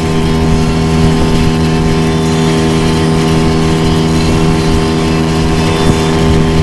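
Outboard motor on a small aluminium boat running under way at a steady speed, its pitch holding constant.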